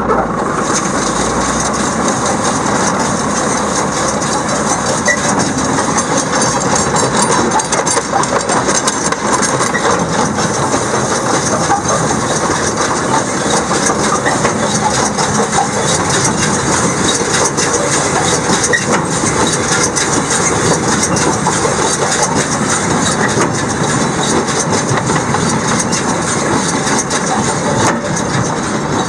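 Hesston 4750 big square baler and the tractor powering it, running steadily at an even speed.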